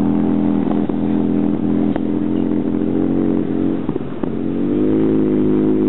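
Land-speed motorcycle engine running steadily under power as the bike speeds away. Its pitch dips briefly about four seconds in, then climbs higher.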